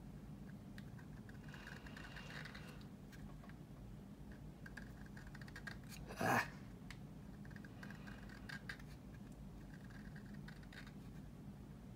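Razor saw scraping faintly along a plastic model wing in a series of short strokes, re-scribing panel lines that were sanded away over a filled seam. A brief louder bump about six seconds in.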